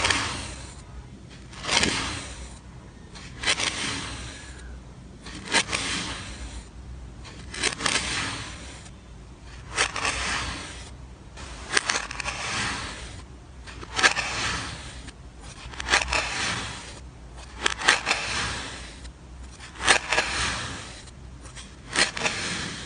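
Kinetic sand being cut with a blade in slow, regular strokes, about one every two seconds. Each stroke is a short scrape with a few sharp clicks.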